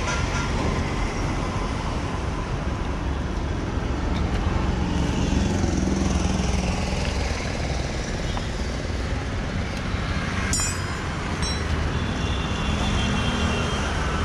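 Steady road traffic noise, with vehicle engines rumbling past, louder twice. A brief sharp click about ten seconds in.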